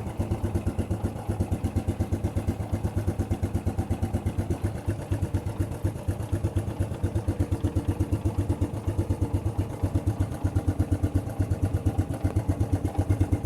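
1987 Suzuki 230 shaft-drive ATV's single-cylinder four-stroke engine idling steadily with an even, rapid putter of about six beats a second. The owner says the engine needs a top end.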